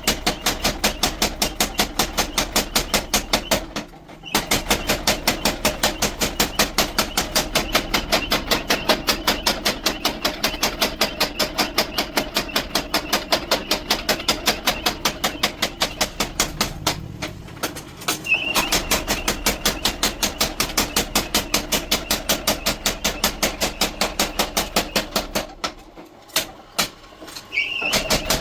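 Rapid, evenly paced hammer blows, about three a second, forging a steel blade, with a few short pauses.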